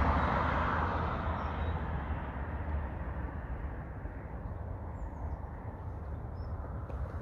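Road traffic rumbling steadily, with a rushing noise that is loudest at the start and fades over the first few seconds, and a few faint bird chirps about five seconds in.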